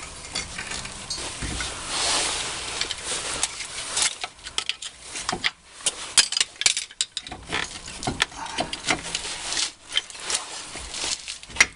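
Hand work on a car's front brake and hub: metal parts and tools clinking, knocking and scraping in irregular bursts, with a longer scrape about two seconds in.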